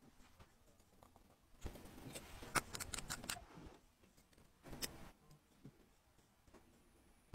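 Small clicks and light scraping of watchmaker's tweezers and watch parts being handled on a wristwatch movement, in two short spells, the first with several sharp clicks.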